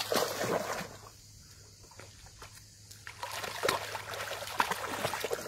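Water splashing and sloshing as a kelpie moves through shallow muddy water. It is busier for the first second, quieter for the next two, and picks up again from about three seconds in.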